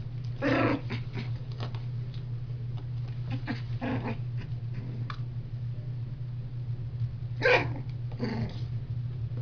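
Young blue heeler × terrier-poodle cross puppies play-fighting, giving a few short yips and small growls, the loudest about half a second in and again about seven and a half seconds in. A steady low hum runs underneath.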